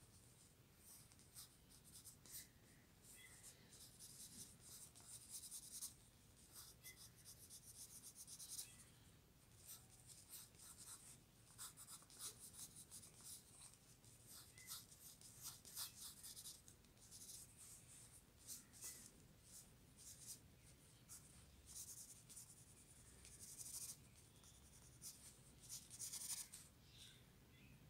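Pencil scratching across paper while sketching: faint, dry strokes in quick runs broken by short pauses.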